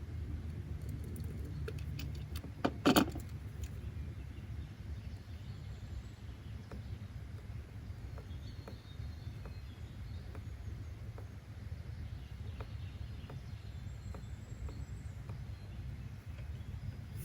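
Steady low background rumble, like distant traffic, with faint scattered ticks and one short, louder knock about three seconds in.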